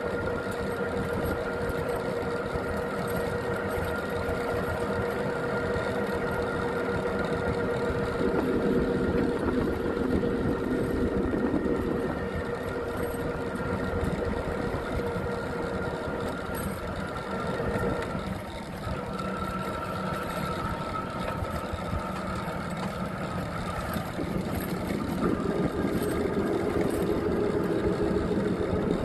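Engine of a small road vehicle running steadily while driving, its note shifting a little about two-thirds of the way through as the speed changes.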